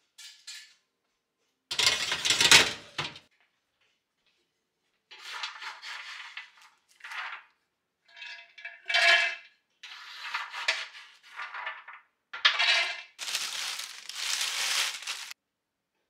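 Roasted hazelnuts and cashews rattling and clattering on a metal baking tray in a run of separate bursts, with a loud metal clatter about two seconds in and a longer rattling pour near the end.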